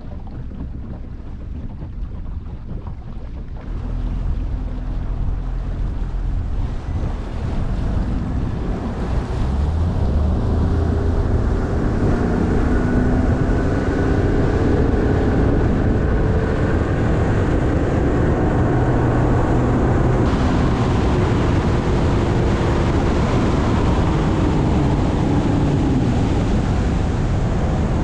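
Nitro Z18 bass boat's outboard motor running under way, building up over the first ten seconds or so and then holding steady. Wind buffets the microphone and water rushes past the hull.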